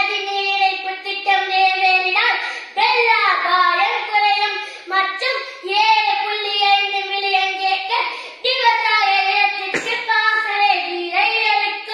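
A boy delivering a speech in a loud, high-pitched, forceful voice, declaiming with rising and falling emphasis.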